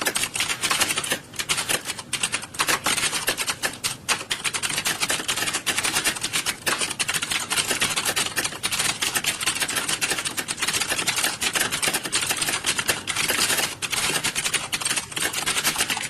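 Dense, continuous clatter of keystrokes from many computer keyboards being typed on at once.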